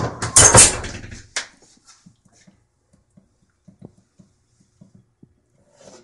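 Wooden office door handled and swung shut: a loud clatter in the first second and a sharp click just after, then only faint small knocks and ticks.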